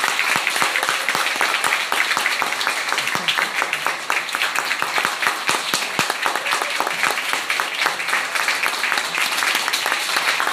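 Audience applauding, a dense, steady clapping with no music playing.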